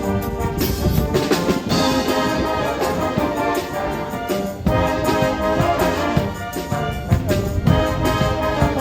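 Background music: brass-led orchestral music playing at a steady pace.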